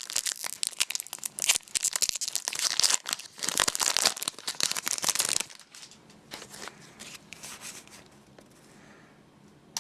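A Pokémon booster pack's foil wrapper crinkling and tearing as it is opened: dense crackly rustling for about five seconds, then fainter rustling.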